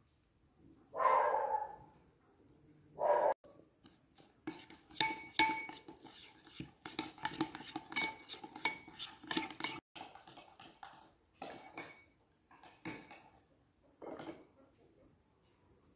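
A metal spoon stirring and clinking in a ceramic bowl, mixing a thick paste of butter, oil and spices, in a quick run of scrapes and clicks with a faint ring from the bowl. Two brief louder noises come first.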